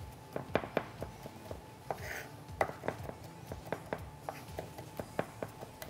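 Kitchen knife mincing garlic on a cutting board: light, uneven knocks, about three a second, with a brief scrape about two seconds in.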